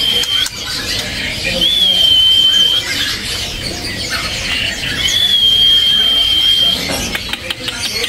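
Female white-rumped shama singing long, level high whistles, each held a second or more: the end of one at the start, then two more about a second and a half and five seconds in.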